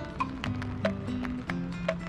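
Background music with a held, shifting bass line and sharp percussion hits at a steady beat.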